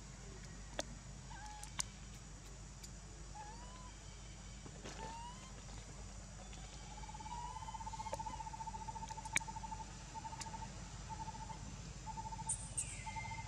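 Animal calls: a few short rising chirps, then from about halfway a long, rapidly pulsing call at one pitch that repeats in bouts, with a falling call near the end. A few sharp clicks stand out over a steady low hum.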